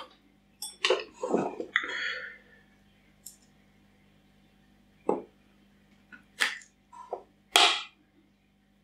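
Handling of a clear plastic cup and a long brush while coaxing a tarantula sling out: a handful of short, scattered plastic taps and clicks, the sharpest about six and a half and seven and a half seconds in.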